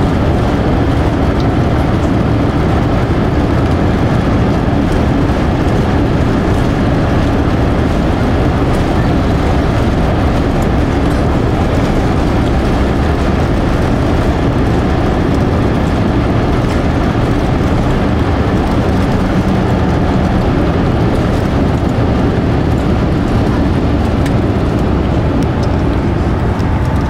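Airbus A350-900's Rolls-Royce Trent XWB engines at takeoff thrust during the takeoff roll, heard from inside the economy cabin: a loud, steady roar.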